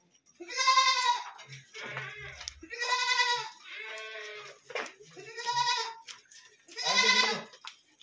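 Sojat goats bleating: four loud, quavering bleats about two seconds apart, with quieter bleats in between.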